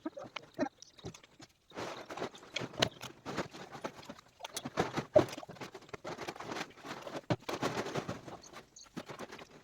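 Day-old chicks in a brooder, giving rapid, irregular tapping and rustling as they peck and scratch.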